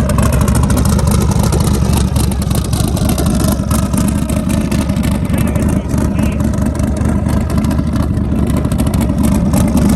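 A vehicle engine running steadily with a loud, low, pulsing rumble.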